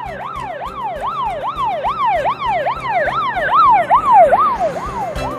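Fire department car siren, its pitch sweeping up and down about twice a second in a steady repeating cycle.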